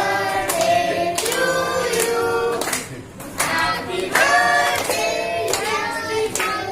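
A group of people singing together while clapping hands along in time.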